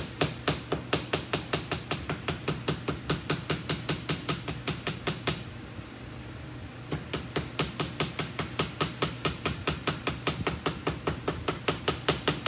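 Small hammer tapping quickly and lightly on a snip-cut piece of 26-gauge galvanized sheet metal, about five or six taps a second, each with a ringing metallic ping. This flattens the cut edge and knocks down the lip that snipping tight radiuses turns up. The tapping stops for about a second and a half near the middle, then picks up again.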